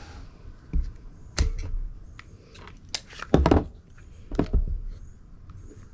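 Metallic clicks and clacks from a 9mm pistol being handled to clear a malfunction, a round set back into its case: several separate sharp clicks, with the loudest cluster a little past the middle.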